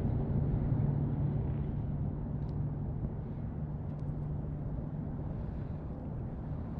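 Steady low hum of a boat motor, easing slightly in the second half.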